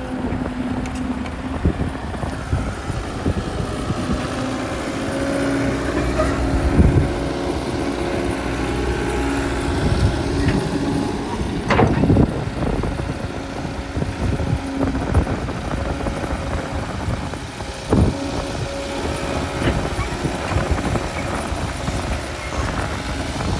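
Hitachi tracked hydraulic excavator's diesel engine running steadily under load while digging dry soil, with several sharp knocks and clanks from the bucket and boom, the loudest about twelve seconds in.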